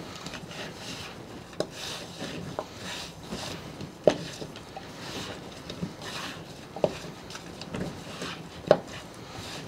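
Raw chicken drumsticks tossed by gloved hands in a plastic mixing bowl to coat them in cornstarch and rub: uneven rubbing and squishing, with a few sharp knocks, the loudest about four seconds in and near the end.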